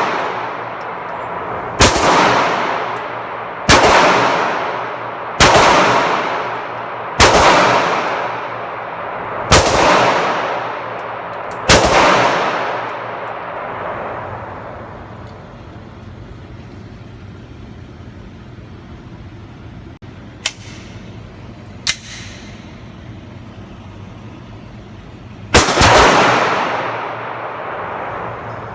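Gunshots from a firearm at a shooting range: six shots about two seconds apart, each with a long echoing tail. After a pause come two faint sharp cracks, then one more shot near the end.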